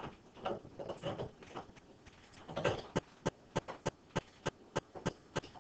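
Computer mouse scroll wheel clicking in a steady rhythm of about three short clicks a second, starting about halfway in. Before that there are softer, irregular muffled taps.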